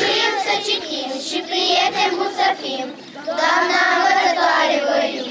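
A group of young schoolchildren singing together, with a long held phrase about three seconds in.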